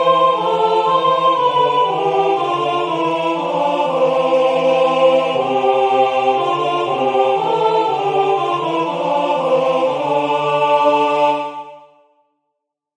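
Two-part choral music, an upper and a lower voice line moving note by note through a slow hymn tune. It ends on a held final chord that dies away about eleven seconds in.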